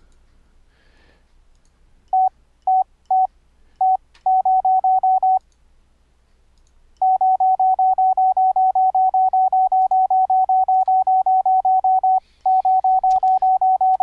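Morse code tones from a software sine-wave code practice oscillator keyed by MIDI, a pure beep near 800 Hz. After about two seconds of quiet it sends a few longer elements, then fast even strings of short beeps, about five a second, with a pause around the middle and a brief break near the end.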